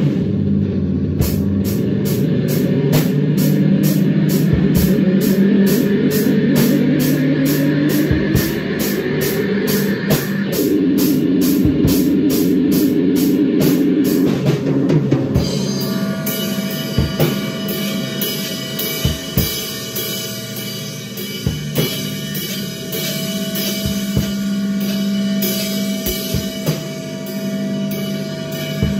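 Free-form noise jam on drum kit and electric guitar. A low, droning guitar with sliding pitches plays over fast, even cymbal strokes. About halfway through the steady beat stops, leaving a held tone and scattered drum hits.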